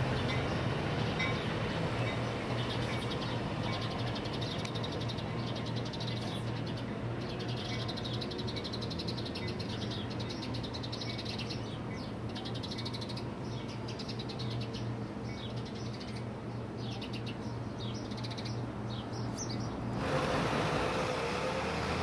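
Birds chirping over a steady low hum as a Coaster commuter train passes at a distance. About 20 seconds in the sound changes abruptly to louder road traffic.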